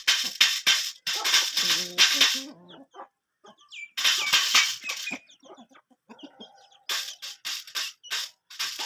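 Chickens feeding: bursts of rapid sharp taps, several a second, from beaks pecking at food. A few short low clucks come in about two seconds in and again near six seconds.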